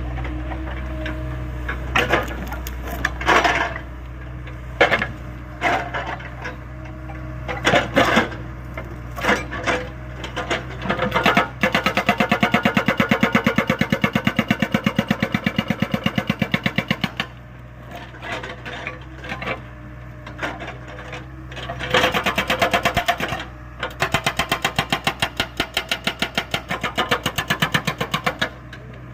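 Hydraulic rock breaker on a Hyundai 85A excavator hammering. Scattered single knocks come first. About twelve seconds in, a burst of rapid, even blows lasts about five seconds, and a second long burst starts about ten seconds later. The excavator's diesel engine drones steadily underneath.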